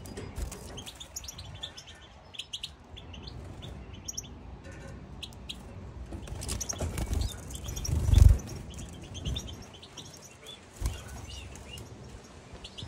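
European goldfinches twittering in a group, many short high chirps, with wing flutters and low thumps as they move about the cage; the loudest thump comes about eight seconds in.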